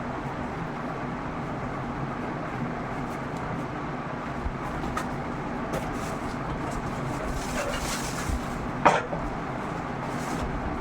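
Steady background hum with a few light clicks of parts being handled, and one sharper knock about nine seconds in.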